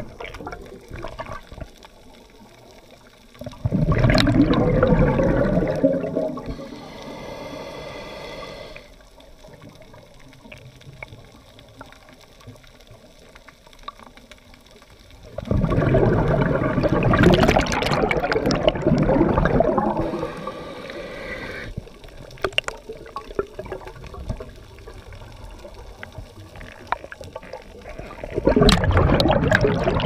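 Scuba breathing heard underwater through a regulator. Three long rushes of exhaled bubbles come about twelve seconds apart, the second lasting about five seconds. After each of the first two comes a quieter, higher hiss as the next breath is drawn in.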